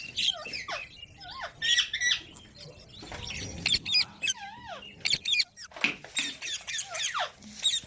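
Group of green Indian parrots squawking and screeching in quick succession: short harsh calls, many with sharp sliding pitch.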